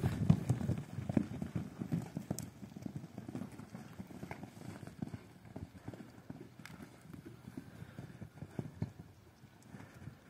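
Hooves of several heavy draft-type horses trotting and cantering on soft, muddy ground: a quick run of dull thuds, loudest at first and fading as the herd moves off.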